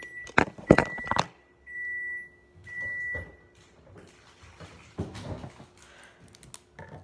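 Several knocks as the phone is handled and set down facing the ceiling, then two electronic beeps a second apart, each held for over half a second. A few more knocks and rustles follow.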